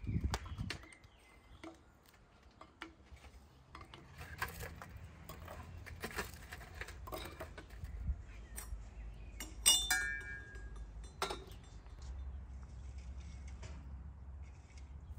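Scattered clinks and light knocks of kitchenware being handled, one of them ringing briefly about ten seconds in.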